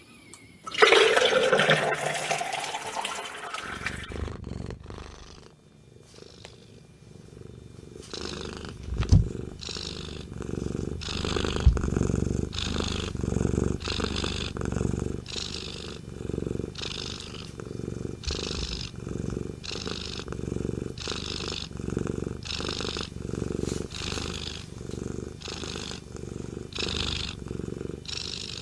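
Domestic cat purring close to the microphone: a steady rumble that swells with each breath, about once a second. It is preceded, in the first few seconds, by a loud noisy burst with a falling tone in it.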